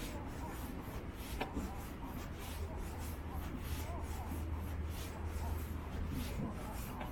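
Footsteps walking along a trail at a steady pace, a soft scratchy step roughly every 0.6 seconds, over a steady low rumble. A single sharp click about a second and a half in.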